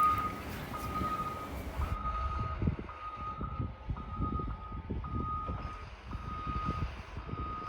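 Snow plow truck backing up, its reversing alarm beeping about once a second over the rumble of its engine working hard as it clears deep snow.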